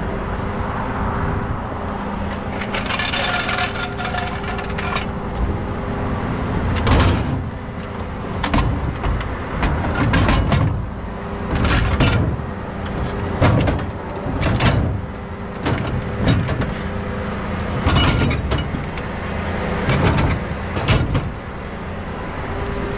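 A diesel tow truck idling steadily, overlaid by a series of sharp metal clanks and knocks about a second apart as a steel floor jack and gear are loaded into its side toolbox, with a rattling scrape a few seconds in.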